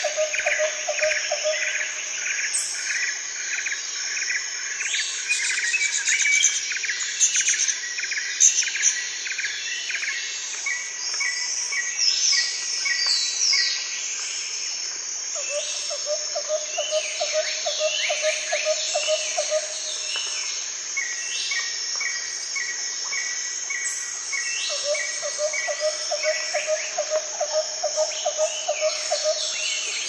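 Rainforest ambience: many birds calling over a steady chirring of insects, with runs of quick repeated notes and a low pulsing trill that comes in three spells of a few seconds each.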